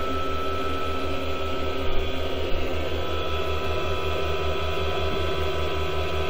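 Green Fuel 2000 W modified-sine-wave power inverter running under load with its cooling fans on: a steady electrical hum and whine with a low throb several times a second, and a couple of faint clicks about two seconds in. The owner hears this as clicking and popping he can't place, possibly static, from either the inverter or the new EMI filters.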